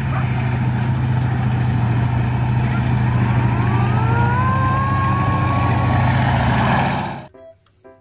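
Main battle tank driving through sand: a steady diesel engine rumble with track and running noise, and a whine that rises in pitch about halfway through and then holds. The sound cuts off suddenly near the end.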